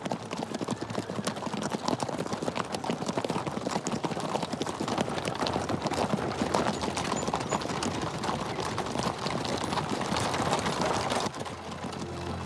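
Hooves of several horses walking, a dense run of overlapping clip-clops; the hoofbeats drop away sharply near the end.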